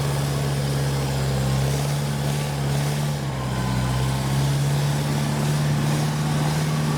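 Kubota combine harvester's diesel engine running steadily as the machine moves, a constant low drone that dips slightly in pitch about three seconds in and then steadies.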